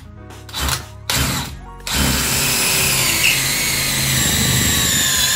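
DeWalt DCD996 cordless hammer drill driving a long self-drilling screw. After two short bursts it runs steadily from about two seconds in, its whine slowly falling in pitch.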